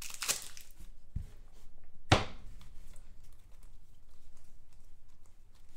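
Hands handling a foil trading-card pack and a stack of cards: a few light crinkles at first, a soft thump about a second in, and a sharp tap about two seconds in, the loudest sound.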